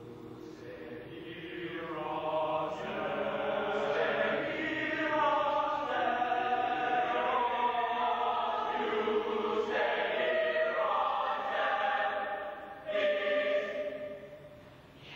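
Mixed high school chamber choir singing sustained chords, swelling from soft to full over the first few seconds. Near the end it breaks off briefly, comes back in loudly on a new chord, then fades.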